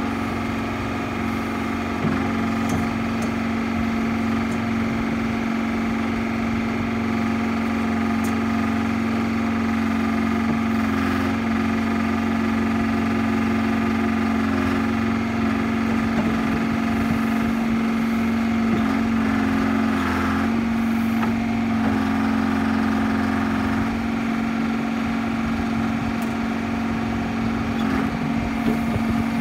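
Hy-Hoe 685B excavator's diesel engine running at a steady speed, with an even droning tone and no change in pitch.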